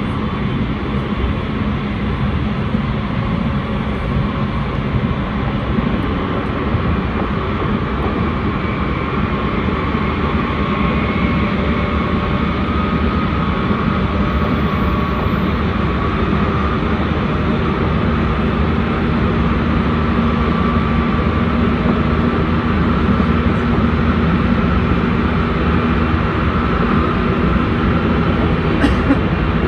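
Tsukuba Express commuter train heard from inside the car while running at speed: a steady rumble and rush of wheels on rail with a faint high whine, growing a little louder in the second half.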